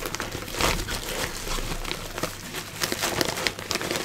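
Clear plastic bag around a PC power supply crinkling as the unit is handled and lifted out of its packaging, a dense run of small crackles.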